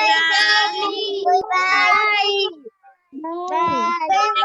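A child's voice singing a children's song, with held notes and a brief pause about three seconds in.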